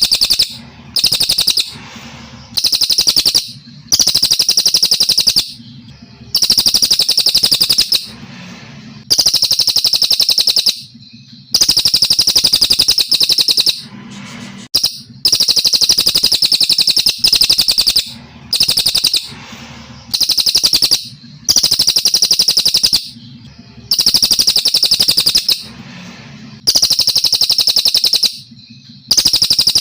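A brown cililin, a Kalimantan songbird, singing loudly in rapid, high trilling phrases about one to two seconds long, repeated over and over with short pauses between.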